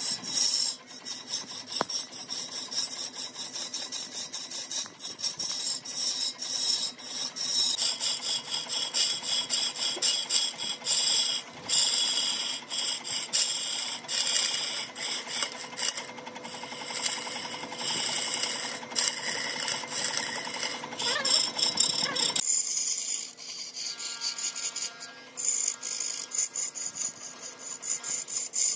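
Woodworking tool noise on wood: a fast, rasping mechanical chatter with many short sharp strokes, changing abruptly twice.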